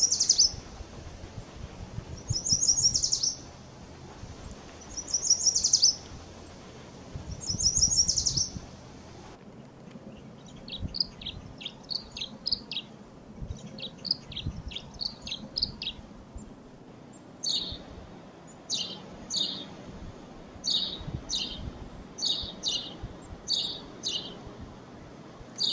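Small wild songbirds calling. First come four loud nasal calls about two and a half seconds apart, then a run of quick high chips, then sharp down-slurred notes, many in pairs.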